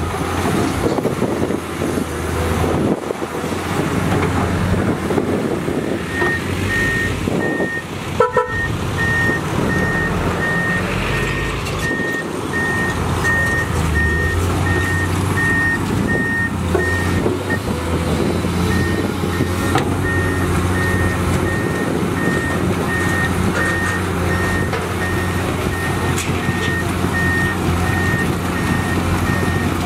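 Komatsu PC210 hydraulic excavator's diesel engine running steadily under load while it digs. A vehicle's reversing alarm beeps in an even rhythm from about six seconds in, clear until about halfway, then fainter.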